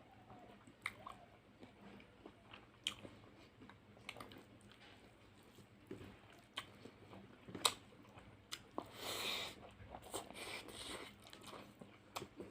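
A person eating fish curry and rice close to the microphone: wet chewing and lip smacks with scattered sharp mouth clicks, and a louder breathy rush about nine seconds in, then more a second later.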